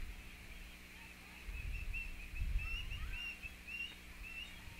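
Many short, high bird-like chirps repeating quickly all through, over a low rumble that swells about a second and a half in and fades after three seconds.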